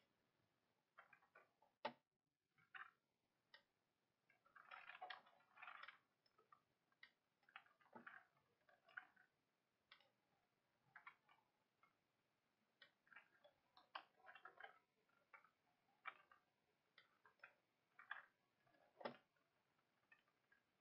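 Very faint, scattered clicks of a computer keyboard and mouse, with a few short bursts of typing, while code is pasted and edited.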